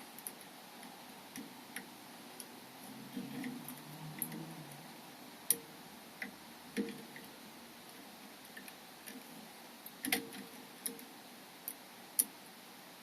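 Light, irregular metal clicks and taps from tools working a 7-lever Chubb 3G117 mortice lock, with a soft rustle of handling a few seconds in.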